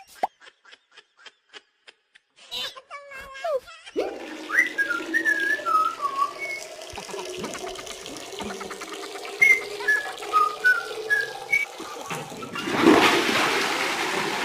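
A string of comic sound effects: a run of quick, evenly spaced clicks, a brief pitched sound, then a series of short whistled notes over a steady hum, and a loud rushing noise near the end.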